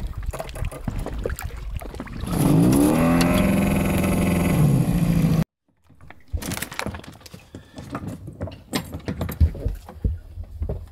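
A boat engine revs up and runs steadily for about three seconds, then cuts off abruptly. After a brief gap come scattered knocks and clinks of chunks of glacier ice being handled on the boat.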